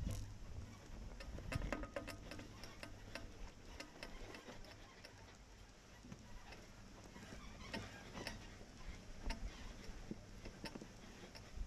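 4x4 crawling over a loose-rock trail: many irregular clicks and crunches of stones under the tyres over a low, steady engine rumble.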